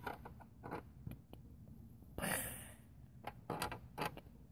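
Faint taps and clicks of small objects being handled, with a brief soft rush of noise about two seconds in.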